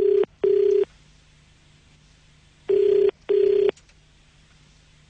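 Telephone ringback tone heard down the line from the calling end: a steady buzzing tone in the double-ring pattern, two short rings close together, then a pause of about two seconds before the next pair.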